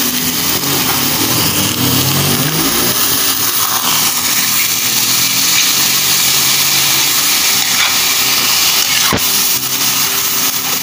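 Squid pieces sizzling loudly in hot oil in a wok as they are stirred and sautéed, a steady hiss throughout. A single sharp clack, likely the spatula against the pan, comes about nine seconds in.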